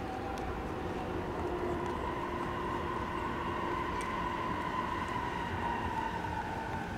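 Toei 10-300 series electric train pulling into the station, its traction motors and inverter whining in several steady tones that fall slowly in pitch as it brakes, over the low rumble of wheels on the rails.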